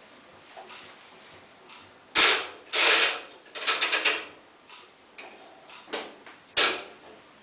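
Miele PW6055 commercial washing machine in its main wash: a string of sharp swishes and clicks as the drum turns the load, loudest about two seconds in, with a rapid run of clicks around four seconds and two more short bursts near the end.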